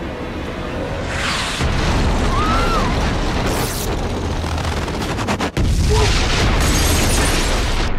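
Loud rumbling boom noise that swells about a second in, drops out briefly about five and a half seconds in, then comes back louder.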